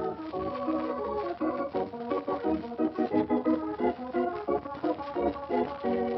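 Organ music playing a quick, busy passage of short notes that change several times a second.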